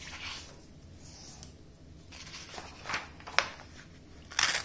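A sheet of paper rustling as it is folded in half by hand and the fold pressed flat, with a few sharp crinkles about three seconds in and a louder rustle near the end.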